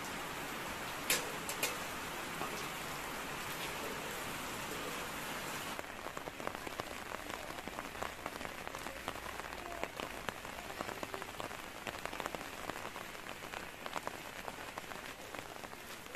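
Rain falling on wet leaves and plants, with many separate drops tapping. For about the first six seconds there is a denser steady hiss with two sharp cracks just after one second; from about six seconds in it turns into lighter, patchier pattering.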